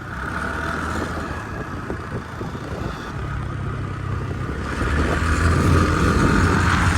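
Motor scooter engine running under throttle on a dirt climb, getting louder about four and a half seconds in.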